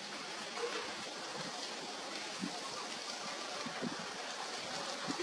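A steady rushing noise, like running water or wind, with a faint short tone about half a second in.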